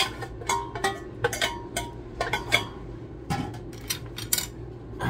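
Irregular clinks and knocks of a cooking pot and utensils against a bowl as cooked instant noodles are tipped into it, some strikes ringing briefly.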